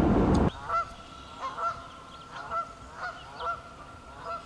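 A loud steady rumble cuts off abruptly about half a second in. It is followed by geese honking, about seven short calls at irregular intervals.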